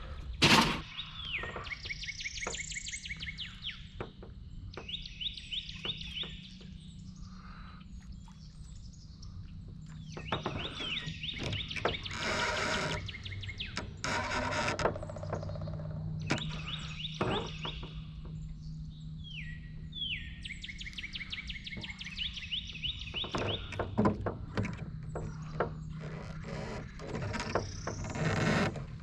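A songbird singing the same quick phrase of rapid high notes over and over, a few seconds apart, over a low steady hum. A sharp knock about half a second in.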